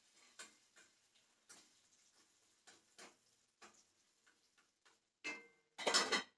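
Kitchen utensils clinking and tapping against cookware in light, irregular clicks, then a louder clatter of about half a second near the end.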